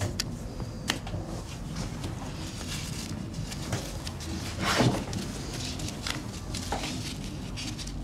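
Rustling and handling of a zip-up tracksuit jacket, with scattered small clicks and a louder swish of fabric about five seconds in.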